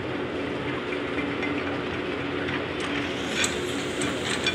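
A steady engine drone with a hiss of noise under it, and a few faint clicks from about three seconds in.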